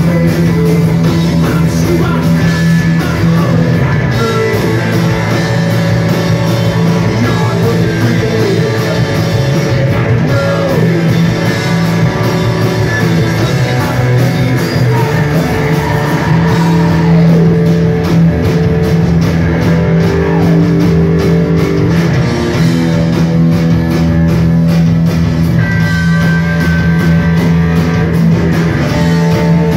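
Live rock band playing a song at full volume: electric guitars over drums.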